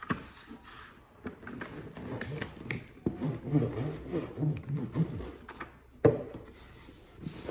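Hands rubbing and pressing a glued paper sheet onto a cardboard box, with soft scrapes and handling noise, and a sharp knock at the start and another about six seconds in.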